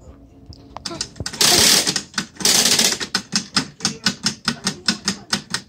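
3D-printed PLA watch escapement running: the plastic escape wheel and pallet fork tick in a steady rhythm, about five ticks a second, from about halfway in. Before the ticking settles, two loud hissing rushes are heard.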